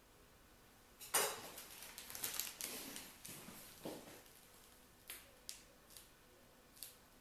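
Handling noise from a polycarbonate chocolate mould and a plastic piping bag: rustling starts about a second in and lasts a few seconds, then comes a handful of light, separate clicks and taps.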